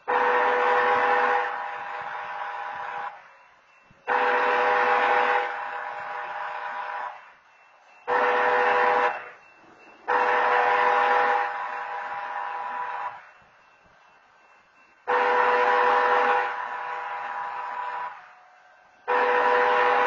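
Crossing-mounted wayside horns (an automated horn system) sounding a train-horn chord in the grade-crossing pattern long, long, short, long, then starting the pattern again. Each blast drops to a lower level partway through before cutting off.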